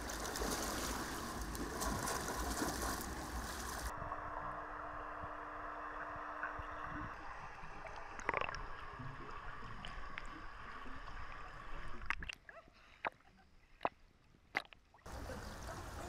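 Water splashing and lapping in an indoor swimming pool, then after a few seconds a muffled underwater sound with a steady low hum. Near the end it turns quieter with a few sharp clicks before the surface splashing returns.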